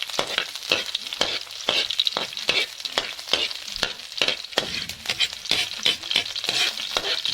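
Chopped garlic sizzling in a little hot oil in a wok, being sautéed until golden brown, with frequent stirring strokes against the pan, several a second.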